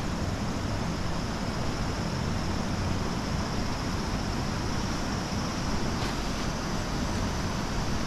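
A waterfall running: a constant, even rush of falling water, heaviest in the low range, with a faint steady high-pitched hum above it.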